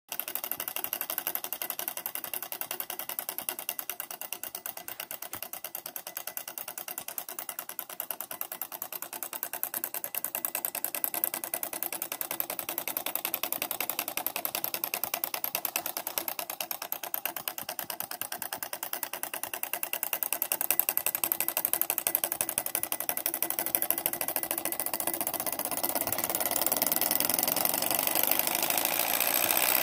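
Twin-flywheel model Stirling hot air engine running at speed, its pistons and linkage making a fast, even mechanical clatter that grows louder toward the end.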